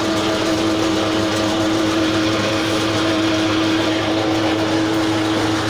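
A motor-driven machine running steadily with a constant hum over a whirring noise.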